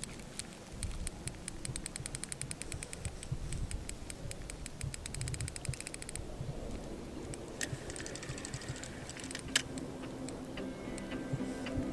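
Large spinning reel on a carp rod clicking rapidly and evenly for about six seconds as it works, then a few sparser clicks and one sharp click. Music comes in near the end.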